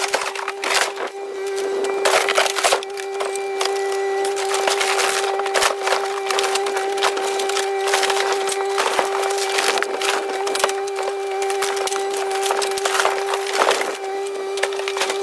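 Fiberglass boat hull being crushed and torn apart by a Kubota KX057-5 mini excavator's bucket and thumb: repeated sharp cracks and splintering, over the steady tone of the machine running.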